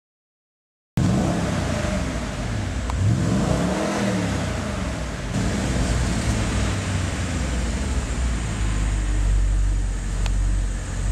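Audi RS5's 4.2-litre V8 with sport exhaust, cutting in abruptly about a second in; the engine note climbs and falls a few times, then settles into a steadier low drone.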